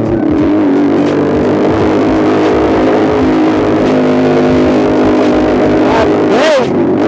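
Honda CBR150R's single-cylinder engine running loud through an SC Project straight-through muffler, with a quick rev up and back down about six and a half seconds in.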